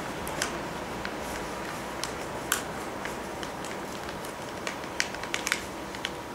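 Sheet of wrapping paper being folded by hand into accordion pleats: irregular light crackles and ticks of the paper creasing and rubbing, over a steady hiss.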